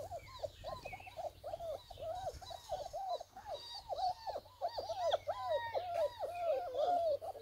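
Several German Shepherd puppies whining and squealing together: many short calls that rise and fall in pitch, overlapping in quick succession.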